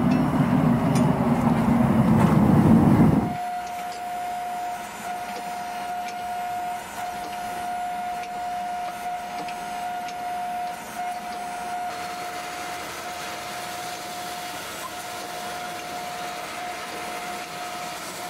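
Propane forge burner running loudly for about three seconds, then cutting off suddenly. A hydraulic forging press follows, running with a steady high whine while it squeezes a hot steel billet to forge-weld its layers.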